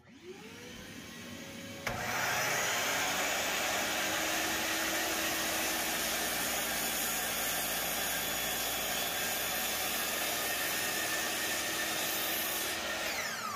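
A dust-extraction vacuum spins up and runs steadily. About two seconds in, a Bosch GCM12SD 12-inch glide miter saw starts abruptly and runs through a cut in a pine board. Near the end the saw's whine falls away as the blade spins down, while the vacuum keeps running.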